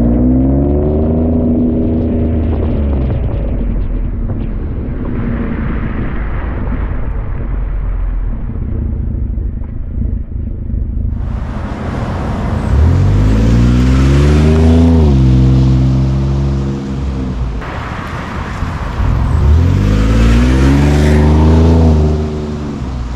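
2023 Ford F-150's 3.5-litre EcoBoost twin-turbo V6 running through a Manta 3-inch cat-back exhaust, first revved at the tailpipes, its note rising and falling. About eleven seconds in it switches to the truck accelerating on the road, the exhaust note climbing in pitch twice, louder than the revs.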